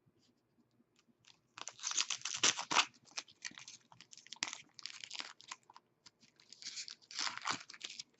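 Thin plastic card packaging crinkling and crackling as it is handled, in irregular bursts starting about a second and a half in.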